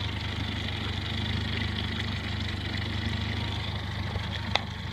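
Boat engine idling with a steady low hum, and one sharp click near the end.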